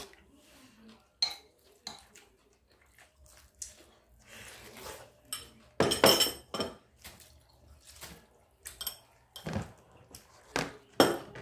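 Metal spoon and chopsticks clinking and knocking against bowls and dishes while eating, in scattered strokes with a loud cluster about six seconds in.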